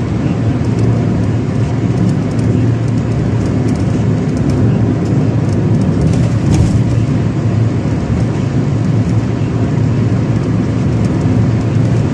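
Steady low rumble of road and engine noise inside the cabin of a car cruising on a highway.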